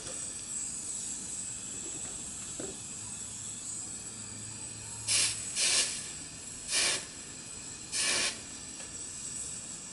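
Small gas soldering torch hissing steadily on a soft flame while soft-soldering copper pipe, with four short, louder bursts of hiss between about five and eight and a half seconds in.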